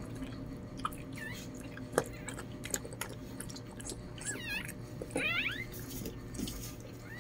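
Newborn Lhasa Apso puppy giving a few short, thin, high-pitched squeaks with a wavering pitch, the strongest about five seconds in, among small wet clicks.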